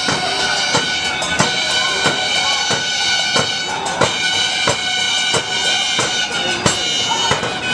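Music with a steady, driving drumbeat of about three strong beats every two seconds, with sustained high tones over it.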